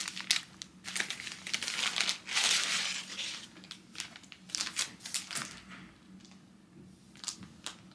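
Plastic packaging crinkling and rustling as it is handled and pulled off, in dense bursts for the first few seconds, then a few scattered crinkles and clicks.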